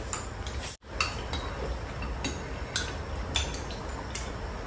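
Chopsticks and spoons tapping and clinking lightly against ceramic bowls and plates while people eat, in scattered small clicks. The sound cuts out for an instant just before a second in.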